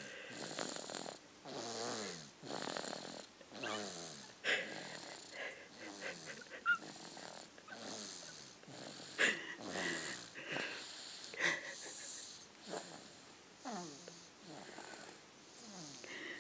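Snoring in repeated whistling, wheezy breaths whose pitch slides downward, about one a second, with a few short sharp clicks in between.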